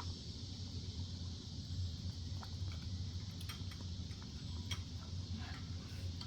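A dog licking and eating at a treat topped with whipped cream: scattered small wet clicks and smacks over a steady low hum.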